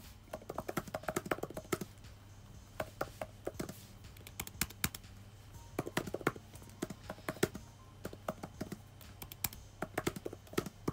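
Typing on the Apple iPad Magic Keyboard's scissor-switch keys: irregular runs of soft, muted key clicks with short pauses between words.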